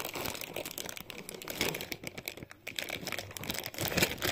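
Thin plastic packaging bag crinkling and crackling as it is handled and opened by hand, with irregular small clicks throughout.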